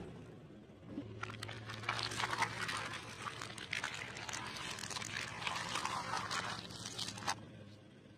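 Car tyre crushing thin plastic trays of coloured gel: plastic crackling and snapping with wet squishing, over a faint steady low hum. It starts about a second in and stops abruptly near the end.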